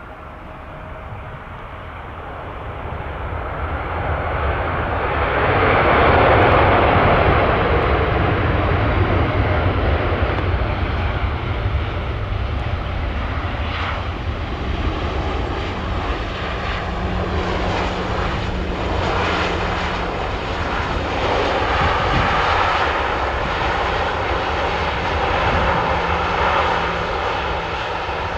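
Four-engine Airbus A340 airliner's jet engines swelling as it comes in to land, loudest about six seconds in, then staying loud with a steady low drone through the second half.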